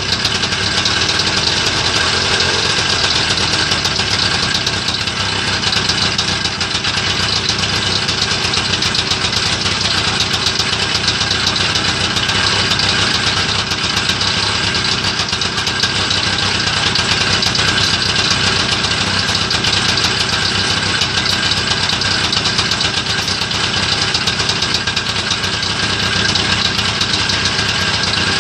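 Tula Muravey cargo scooter's single-cylinder two-stroke engine running steadily at idle on its first run after a repair.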